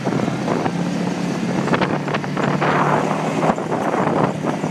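Off-road buggy engine running while driving over a rough dirt track, with many sharp knocks and crackles from the bumpy ground and wind on the microphone.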